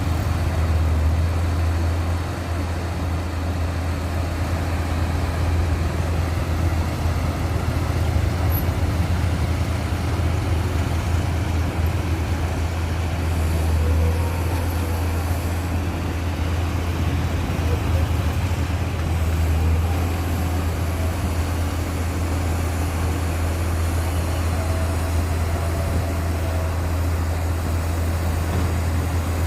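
Heavy diesel engine of a rotary drilling rig running steadily, a low, even drone.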